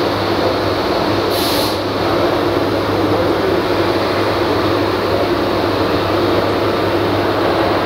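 Wieland FS-216 industrial wet/dry vacuum running, its hose sucking metal chips and coolant off a machine table: a steady rush of air over a low hum, with a brief higher hiss about a second and a half in.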